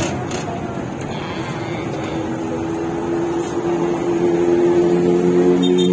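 Jeepney's diesel engine running under a passenger's ride, with road noise. From about three seconds in the engine grows louder and its pitch climbs as it pulls away and accelerates.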